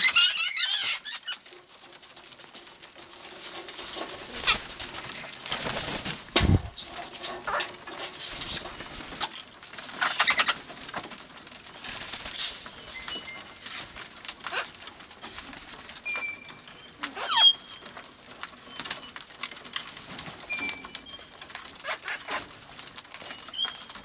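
Wild king parrots and sulphur-crested cockatoos: wings flapping as birds fly in around the feeding spot, with a loud harsh call in the first second and a dull thump about six and a half seconds in. Short whistled chirps come several times in the second half.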